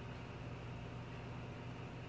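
Steady background hiss with a low hum underneath; no calls or other distinct sounds.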